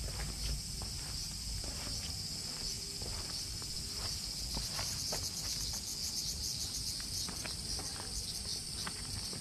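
A steady, high-pitched chorus of summer insects that pulses more strongly through the middle, with irregular footsteps crunching on a gravel and stone path.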